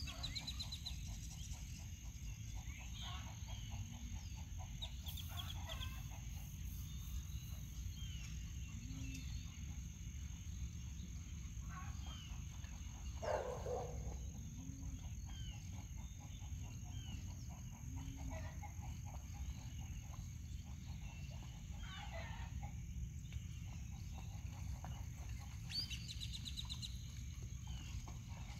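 Frogs and birds calling around floodwater: many short high chirps and several rattling trills, with one louder call about halfway through, over a steady low rumble.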